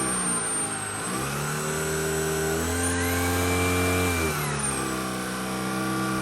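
Shark ICZ300UKT cordless upright vacuum cleaner running on eco mode. Its motor hum dips in pitch and recovers within the first second, rises a little under three seconds in, then falls back about a second and a half later.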